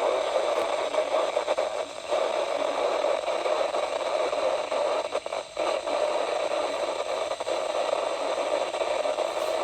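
Static hiss from a weather-band radio tuned to a weak NOAA Weather Radio frequency, with no broadcast voice coming through. The hiss dips briefly about two seconds in and again a little past the middle.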